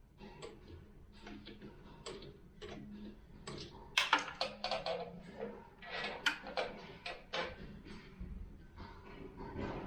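A run of irregular clicks and knocks, thickest and loudest in the middle, over a faint steady low hum.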